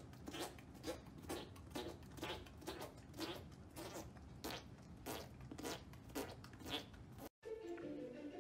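A horse working its mouth and teeth: a rasping scrape about twice a second, which breaks off suddenly near the end.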